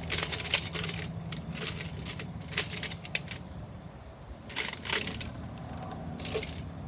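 Small metal hand tools clinking and rattling as they are handled, a series of short, irregular clinks, while a hex wrench is fetched to undo a brake caliper's guide-pin bolts.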